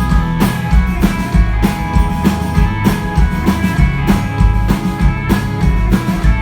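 A live country-rock band playing an instrumental passage between sung lines. A drum kit keeps a steady beat under guitar and bass.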